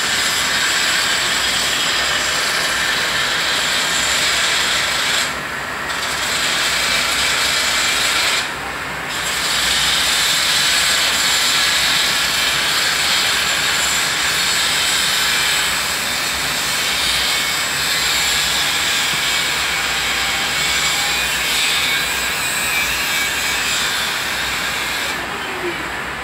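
Isuzu diesel pump engine running steadily, a loud even mechanical noise heard up close. The noise dips briefly twice, about five and eight seconds in.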